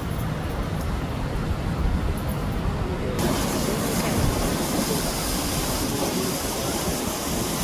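Steady low rumbling noise with a fluttering, uneven texture; a brighter hiss joins abruptly about three seconds in.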